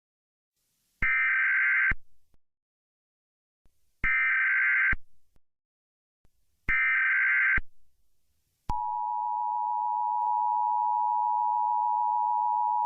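Emergency Alert System tones: three bursts of digital data tones (the SAME header that encodes the alert), each about a second long and about three seconds apart. About nine seconds in, the steady two-tone attention signal starts and holds, signalling that an emergency message follows.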